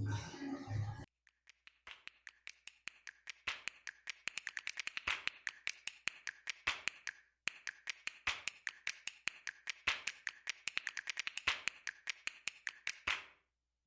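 Rapid, irregular sharp clicks or taps, several a second, in two runs of about six seconds each with a brief break between them.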